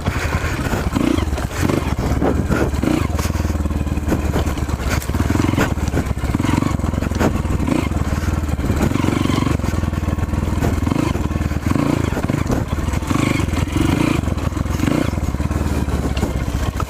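Dirt bike engine running on a trail, the revs rising and falling over and over, with scattered knocks and clatter.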